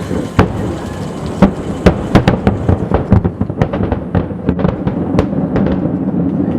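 Finale of an aerial fireworks display: a rapid, irregular volley of sharp shell-burst bangs, several a second, over a continuous low rumble of overlapping reports.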